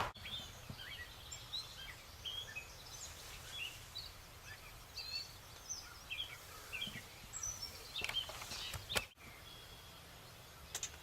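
Faint morning birdsong: many small birds giving short, scattered chirps and calls over a quiet outdoor background, with one quick falling run of notes about seven seconds in. A few sharp clicks come near the end.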